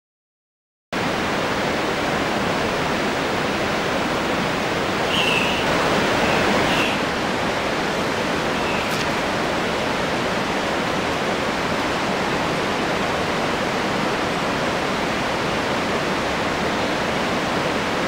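Steady rushing water noise that starts abruptly about a second in. A few short, high bird chirps come through it about five to seven seconds in.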